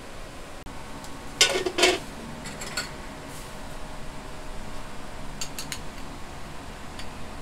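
Two loud metal clanks of kitchen utensils against a pot about a second and a half in, followed by a few lighter clinks, over a steady kitchen hum.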